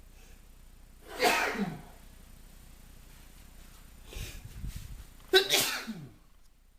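A man sneezing twice, about a second in and again about five seconds in, each sneeze a loud sudden burst with a voiced tail that falls in pitch. They are hay-fever sneezes, set off by pollen.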